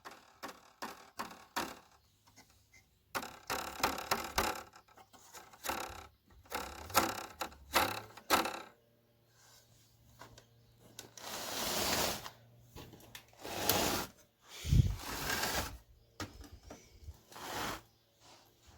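Irregular clicks, taps and scraping from an opened amplifier's chassis and parts being handled, with a few longer rustling swells about two-thirds through and a low thump shortly after.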